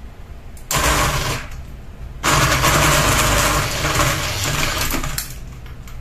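Unbalanced one-blade ceiling fan with a ball of yarn hung from its hub, rattling in two fast bursts over a steady whir: a short one about a second in, then a longer one lasting about three seconds.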